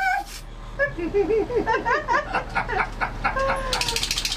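People laughing and squealing in quick bursts, then near the end a short hiss of silly string sprayed from an aerosol can.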